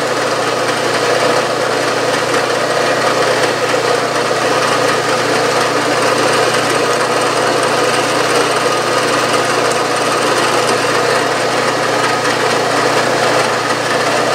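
Milling machine spindle running steadily while a combination center drill spots a hole in an aluminium workpiece.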